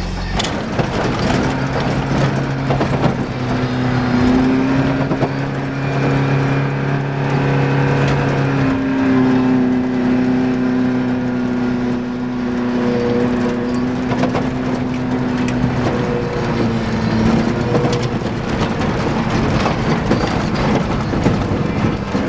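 A vehicle's engine running under load while driving over sand, heard from inside the vehicle. Its pitch holds steady for several seconds at a time and shifts a few times.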